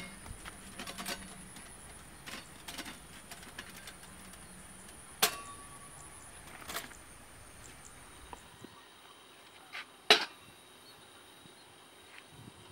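Faint field ambience: a steady high-pitched drone with a few sharp clicks, the loudest about five and ten seconds in. A low background hum drops away a little past eight seconds.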